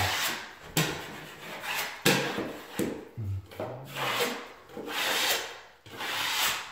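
A five-in-one tool scraping dried drywall joint compound off a taped three-way ceiling corner, in a run of short strokes about once a second, each starting sharply. It is a light scrape to knock down the ridges left when the corner was run and not cleaned, before it gets its single coat.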